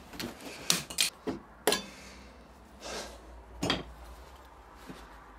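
Sharp metal clanks and knocks as a jaw puller and a rusty outboard part that has just been pulled free are handled: a quick cluster of knocks in the first two seconds and another just before four seconds in.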